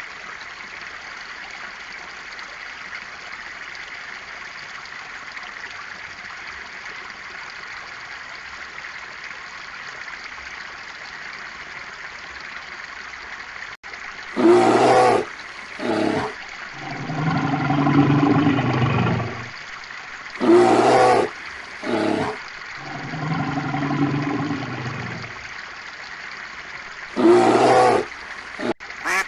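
Steady rushing water for about the first half, then an animal's loud calls, repeated in a mix of short calls and longer, lower drawn-out ones.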